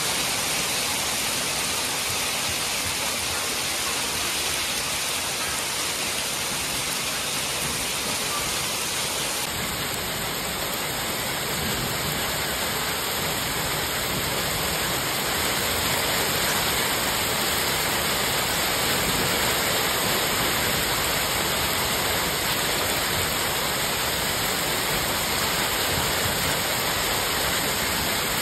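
Hail and heavy rain falling steadily, a dense even hiss with no let-up, at first onto a corrugated metal patio roof and yard. About ten seconds in the sound shifts slightly as it moves to hail and rain splashing among bushes and into a tub of water.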